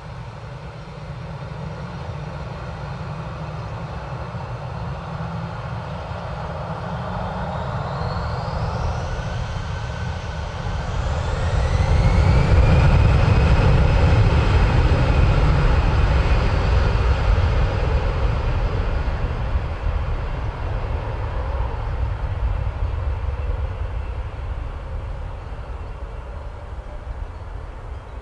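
Airbus A319-112's twin CFM56 turbofan engines spooling up to takeoff thrust: a whine rises in pitch about a third of the way in, then the heavy rumble of the jet blast peaks and slowly fades as the airliner accelerates away down the runway.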